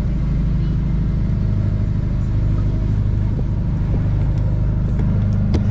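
An engine running steadily on the fishing boat, a low even drone. A couple of sharp clicks sound near the end.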